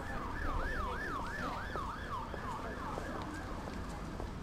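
An emergency vehicle's siren on a fast up-and-down yelp, about three sweeps a second, fading away about three seconds in, over a steady low rumble of street noise.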